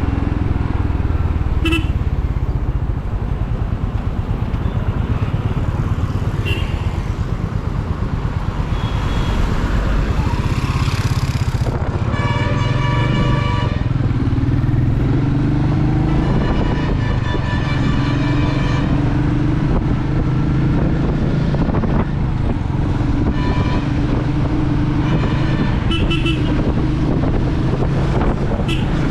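Royal Enfield Meteor 350's single-cylinder engine running steadily at a cruise. Vehicle horns honk in traffic: two longer blasts of two to three seconds near the middle, then a few shorter toots.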